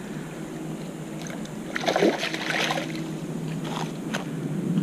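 A hooked peacock bass splashing and thrashing at the water's surface as it is reeled in close to the bank. The loudest splash comes about two seconds in, with a couple of shorter splashes later.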